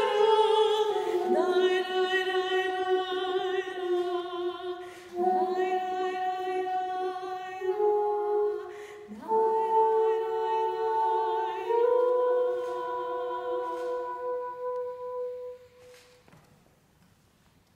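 A soprano sings slow, long-held notes with vibrato while a saxophone plays a lower line with her. There are four long phrases, the lower part sliding up into each one, and the music dies away a couple of seconds before the end.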